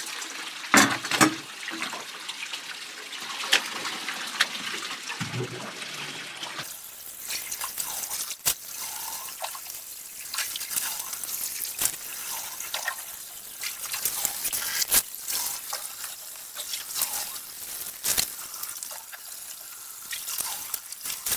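Water trickling and dripping from a small waterfall in a mine tunnel, with scattered sharp clicks and knocks throughout and a louder clatter in the first second or so.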